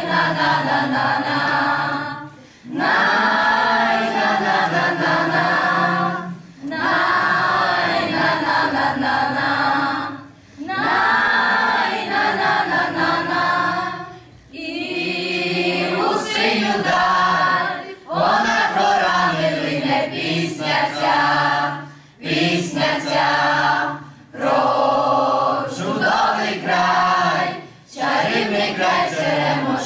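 Mixed choir of boys and girls singing a Ukrainian song. The singing comes in phrases of about four seconds, with short breaks between them.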